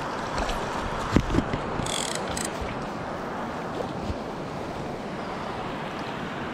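Fly reel's click-and-pawl drag ticking in short runs in the first couple of seconds as line is taken in on a hooked trout. Under it runs a steady hiss of wind and moving water.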